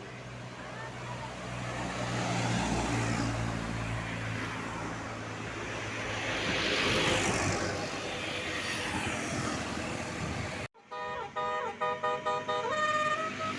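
A tour bus passes close by, its engine and tyre noise swelling to a peak about halfway and then fading. After a sudden break, a multi-tone telolet air horn plays a short stepping tune.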